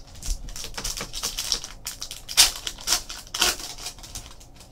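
Foil wrapper of a Panini Rookies and Stars football card pack crinkling and crackling as it is torn open by hand, a dense run of sharp crackles with the loudest about two and a half and three and a half seconds in.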